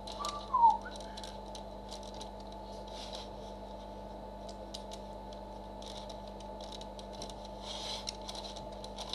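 Small plastic clicks and rattles as the parts of a Robots in Disguise Ultra Magnus transforming toy are handled and moved, scattered irregularly over a steady low hum, with a brief falling tone about half a second in.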